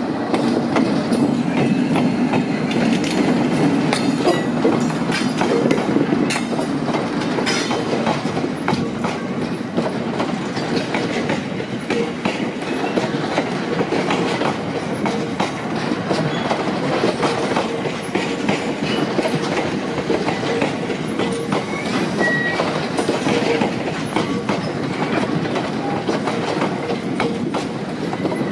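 Freight train of tank wagons passing close by, hauled by a Class 60 diesel locomotive. The locomotive's engine drone fades over the first five or six seconds as it draws away. A steady rumble of the wagons with rapid clickety-clack of wheels over rail joints follows.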